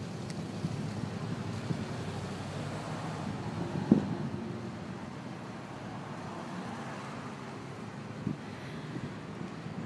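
Steady hum of road traffic, with a sharp knock about four seconds in and a softer one about eight seconds in.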